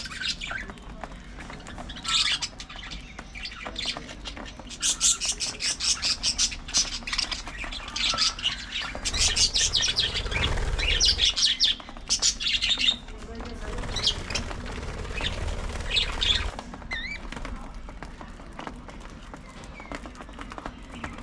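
A flock of budgerigars chirping and chattering in quick, high calls. The chatter is busiest in the middle and thins out near the end, with a low rumble underneath for a while in the middle.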